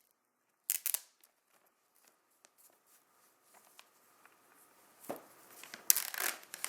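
Cardboard and plastic packaging being handled and torn, with short bursts of crinkling and crackling about a second in and a louder cluster near the end, as a perforated tear strip on the Apple Watch box is worked open.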